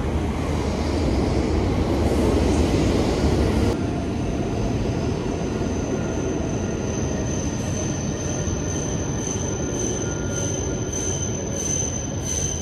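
E7 series Shinkansen pulling into a station platform: a loud rush of wheels and air that eases after about four seconds. A thin, steady high whine then sets in as the train slows.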